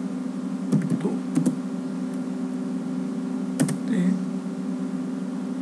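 Computer keyboard keys being typed in two short clusters, a handful of keystrokes about a second in and a couple more near four seconds, over a steady low hum.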